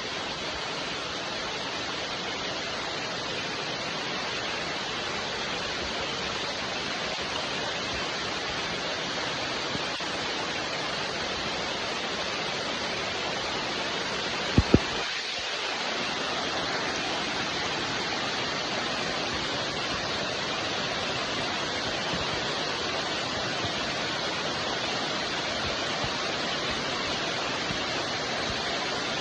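Steady rain falling, an even hiss without a break. About halfway through there are two brief sharp clicks close together.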